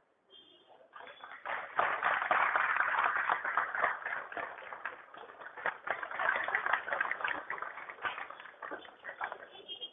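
Audience applauding: dense clapping that starts about a second in, is loudest over the next few seconds, then thins out toward the end.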